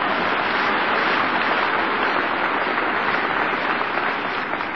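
A crowd applauding, a dense steady clatter of clapping that eases a little near the end, on an old speech recording with the high end cut off.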